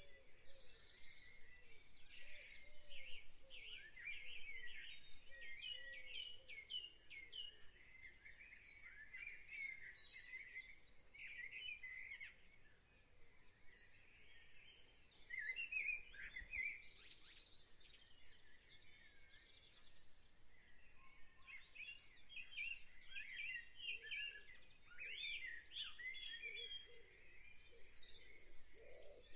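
Spring birdsong: several small birds singing at once, with quick chirps, warbling phrases and rapid trills repeating throughout.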